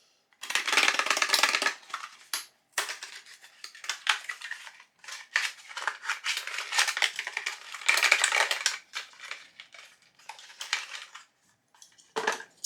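Small metal and plastic precision tools and their packaging being handled and unpacked from a kit box: clinking and rustling in irregular bursts, with short pauses.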